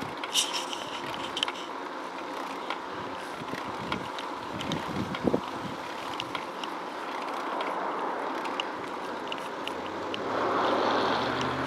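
Wind rushing over the microphone of a moving bicycle's camera, with scattered light clicks and rattles from the bike. The rushing swells louder about ten seconds in.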